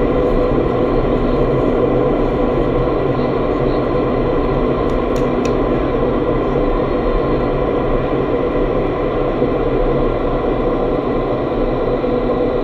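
Indoor vertical wind tunnel running: a steady, loud rush of air with a hum of several steady fan tones, heard from inside the flight chamber.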